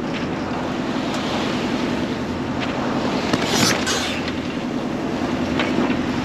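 Sailing yacht under way at sea: a steady rush of water and wind noise with a low, even hum underneath and a few faint knocks.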